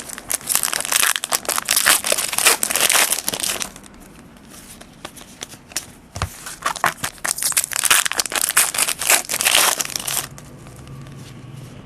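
Foil trading-card pack wrapper crinkling and being crumpled, in two bursts of about three seconds each with a short pause between.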